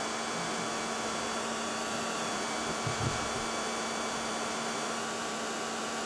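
Hair dryer blowing steadily, heating the painted metal of a car fender so it is more pliable for paintless dent repair, with a faint low bump about three seconds in.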